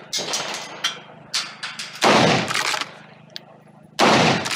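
Two gunshots about two seconds apart, one about two seconds in and one near the end, each with a short echoing tail. Between them come quieter sharp clicks and clatter.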